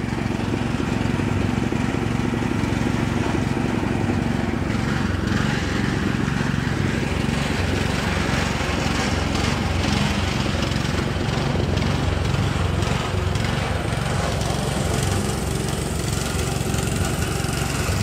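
Portable concrete mixer running steadily, its drum turning a batch of concrete.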